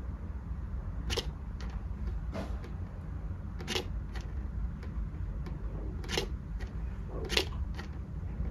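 A cat making short, wet 'shack... shack' mouth smacks over and over, a sign that it feels nauseous. There are four clear smacks a couple of seconds apart, with fainter ones between them, over a steady low hum.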